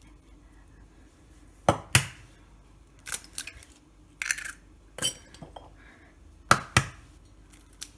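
Eggs being cracked against a mixing bowl and stirred into it: a series of sharp clinks and knocks against the bowl, one every second or so, with two of the loudest close together near the start and again near the end.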